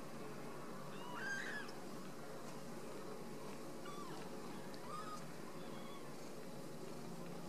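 Very young Ragdoll kitten mewing: a thin, high-pitched mew about a second in, the loudest, then two shorter, fainter mews around four and five seconds in.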